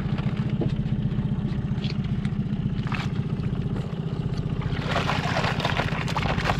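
Yamaha outboard motor idling steadily with an even low pulse. About five seconds in, blue crabs clatter out of a plastic basket and splash into the water.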